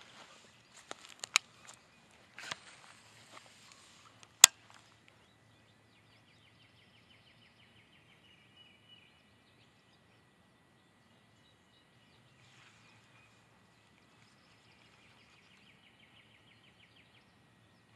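Handling noise: rustling with a few sharp clicks over the first few seconds, the loudest about four seconds in. Then quiet outdoor ambience with birds trilling faintly in the background and a faint steady high tone.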